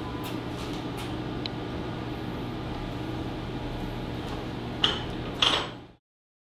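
Steady hum of a kiln room with a few light clicks, then two sharp knocks about half a second apart near the end as the kiln's door is swung shut and latched. The sound then fades out.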